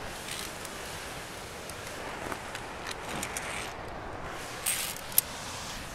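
Steady rush of a waterfall, with light rustling and two sharp clicks near the end as a climber in harness moves off a via ferrata steel-cable bridge.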